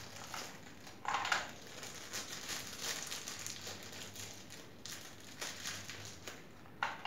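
Plastic toy parts and packaging being handled: irregular rustling, crinkling and short scrapes, the loudest about a second in.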